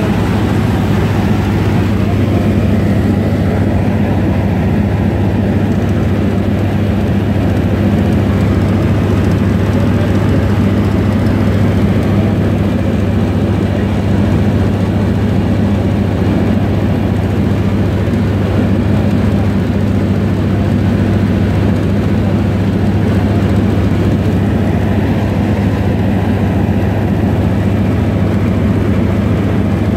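Propeller biplane's engine droning steadily in flight, heard from inside the passenger cabin: a constant low hum with a rushing noise over it.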